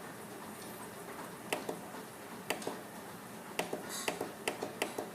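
A run of short, sharp clicks at an uneven pace, several in a few seconds, starting about one and a half seconds in, typical of buttons being pressed while paging through a synthesizer's edit screens.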